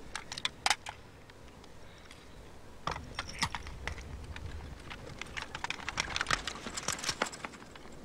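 A few sharp metallic clicks of an M16 rifle being handled and readied, then from about three seconds in a quick, irregular crackle of distant gunfire over a low rumble.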